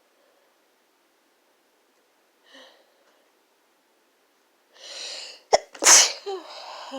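A person sneezing once: a faint sniff, a drawn-in breath about five seconds in, then one loud, sharp sneeze a second later that trails off in a breathy exhale.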